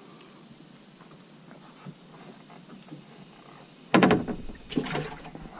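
Quiet background for about four seconds, then a sudden run of loud, irregular knocks and thumps in a fishing boat.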